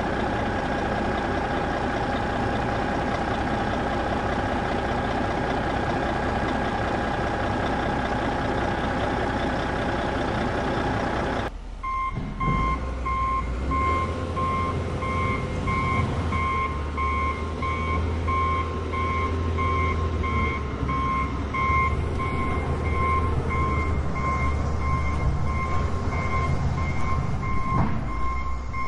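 A heavy vehicle engine runs steadily. About halfway it cuts abruptly to a lower engine rumble with a reversing alarm beeping evenly over it.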